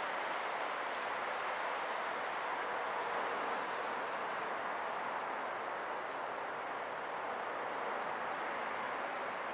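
Steady rumble of a freight train on the line, without individual wheel clacks, with a small bird's short, high, rapid trills breaking in three times.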